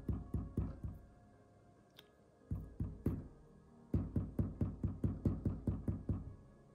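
Baked aroma-bead car freshie tapped gently against a paper-covered tabletop in quick runs of dull knocks, about five or six a second, to make the wet puff paint run down into drips. The first run stops just under a second in, a short one comes around two and a half seconds, and a longer one from about four seconds until near the end.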